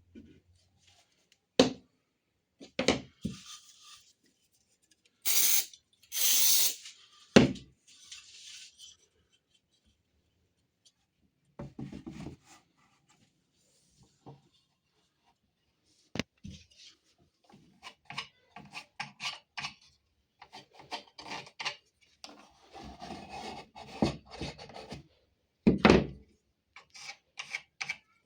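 Hand work on wooden parts: scattered knocks, scraping and rubbing of wood, with two loud hissing bursts of about a second each early on.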